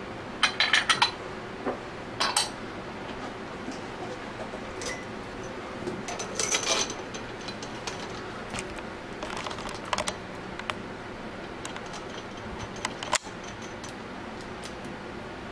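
Metal scroll-pump parts and fitting tools clinking and clicking as they are handled and fitted into the pump housing: a quick run of clicks about half a second in, more clusters around two, six and ten seconds, and a single sharp knock near the end.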